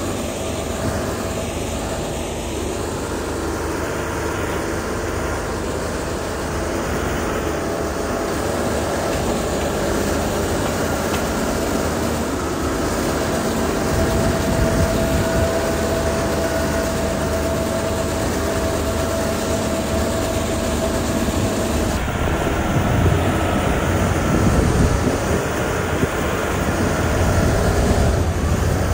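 Diesel engine of heavy road-building machinery running steadily, with a steady whine held over it; the low rumble grows louder in the second half.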